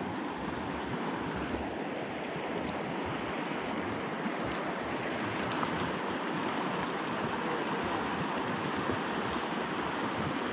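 Fast-flowing mountain river rushing over rocks: a steady, even rush of water.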